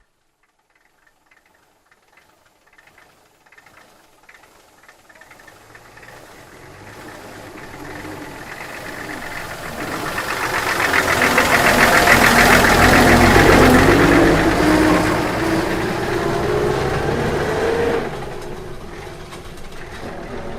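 School bus approaching and driving past: engine and road noise grow from near silence to a peak about two thirds of the way through. The engine note rises as the bus accelerates, then the level falls off sharply near the end.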